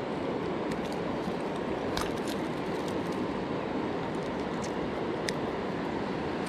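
Steady rush of river water running over rocks, with a few light metallic clicks as fishing pliers work a lure free of a channel catfish's mouth.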